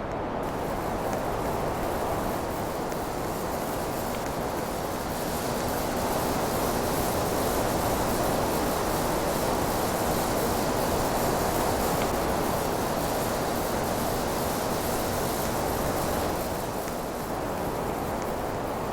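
Nugget split air conditioner running: a steady rush of air with a faint hum underneath. It gets a little louder about six seconds in and eases back near the end.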